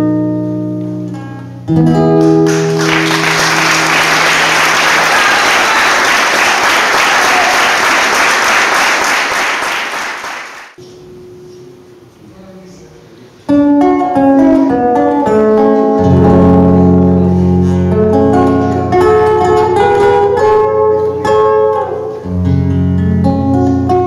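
A guitar chord rings out, then an audience applauds for about eight seconds and the applause fades away. After a short lull, a guitar starts plucking the introduction of the next song over a bass line.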